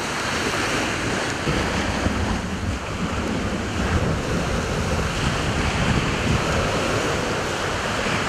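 Surf breaking and washing onto a pebble beach in rough sea, with wind buffeting the microphone.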